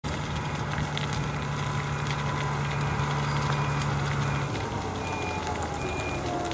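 A heavy vehicle's engine running steadily, its hum dropping lower about four and a half seconds in. Reversing beeps, evenly spaced, start about five seconds in. Light crackling from the burning brush runs underneath.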